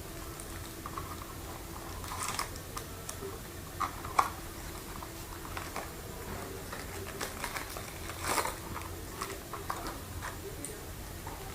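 Packaging being handled and opened by hand: scattered light clicks, taps and crinkles, with sharper taps about four seconds in and a brief crinkle about eight seconds in.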